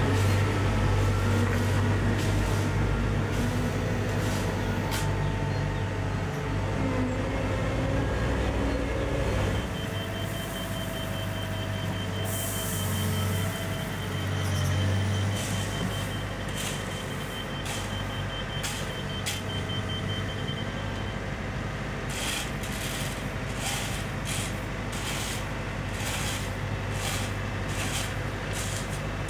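Diesel engines of a Caterpillar wheel loader and excavator running under load as they work. A reversing alarm beeps rapidly from about ten to twenty seconds in, and a run of sharp knocks follows near the end.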